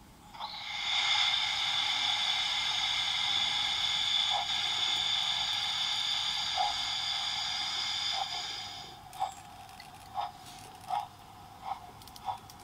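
Model steam locomotive's sound unit blowing one long chord whistle of about eight seconds. After the whistle, soft chuffs start, slow at first and quickening as the train pulls away.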